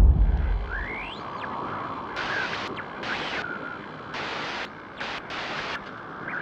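Edited intro sound effects: a deep boom fades out over the first second, then a hiss of static cuts sharply in and out several times.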